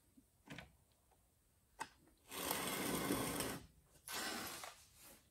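A couple of light clicks, then two spells of metallic rattling, the first about a second long and the second about half a second. The sound comes from an automatic transmission's forward planetary gear and one-way clutch assembly being handled.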